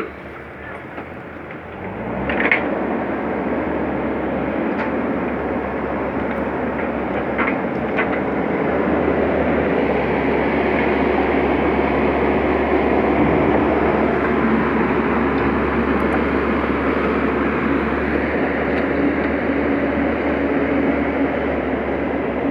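Komatsu PC 130F-7 excavator's diesel engine speeding up about two seconds in, then running hard and steady at high throttle.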